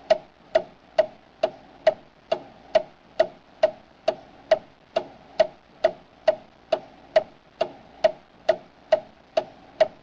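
Steady, even ticking, a little over two ticks a second.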